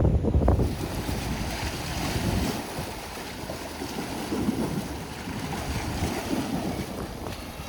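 Wind buffeting the microphone, heavy at first and easing about half a second in, over a steady wash of sea waves.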